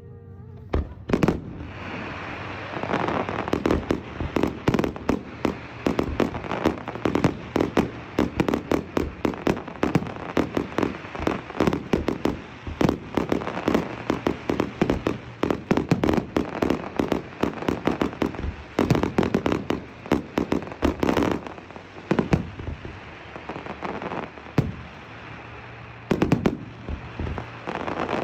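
Aerial fireworks display: a rapid, dense run of shell bursts, bangs and crackling, easing off briefly about three-quarters of the way through before picking up again.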